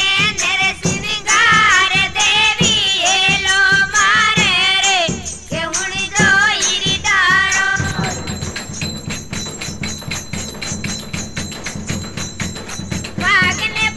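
Rajasthani Fagan folk song: a voice singing over a steady percussion beat. About eight seconds in the singing stops for an instrumental passage of fast, even percussion, and the voice comes back in near the end.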